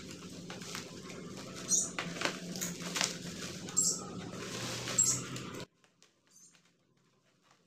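Plastic packaging crinkling and rustling as it is handled, with irregular crackles over a steady low hum. It cuts off abruptly about two-thirds of the way through, leaving only a few faint crinkles.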